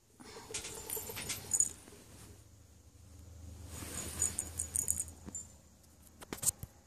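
Rustling and crackling from a hand stroking a Ragdoll kitten on a bedspread, close to the microphone, with a few sharp clicks near the end.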